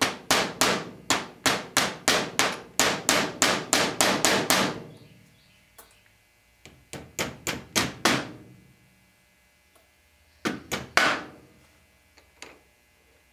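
Small hammer tapping a pin punch, driving a pin out of a Rossi Model 69 revolver's trigger. A quick run of about a dozen ringing metallic strikes is followed by a group of four and then a group of three.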